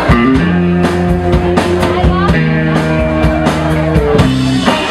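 A rock band playing live: a drum kit keeps a steady beat under held instrumental notes.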